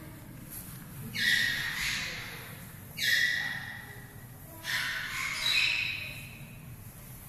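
Three loud, shrill animal calls, about two seconds apart, each starting suddenly and dying away over about a second with an echo.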